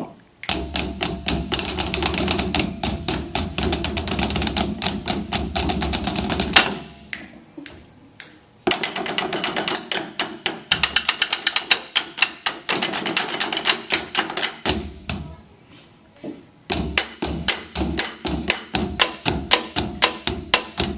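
Percussion ensemble playing drumsticks on rubber practice pads laid on djembes, giving sharp clicking strokes. A dense flurry of strokes gives way to a thinner stretch, then another flurry and another thinner stretch, before an even run of separate strokes near the end.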